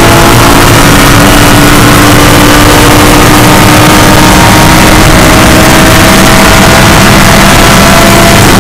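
Audi R8 LMS race car's V10 engine at full throttle, heard loud from inside the cockpit. It shifts up from fourth to fifth in the first few seconds, then the revs climb steadily toward the shift point.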